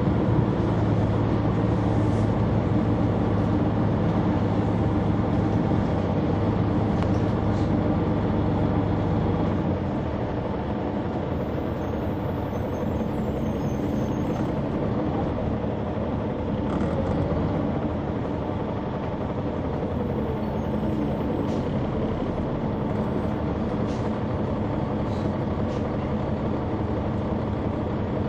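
The Caterpillar C9 ACERT diesel engine of a Neoplan AN459 articulated transit bus, heard from inside the cabin, running under steady load. About ten seconds in its deep hum drops away and it runs on more quietly, with a few light clicks and rattles.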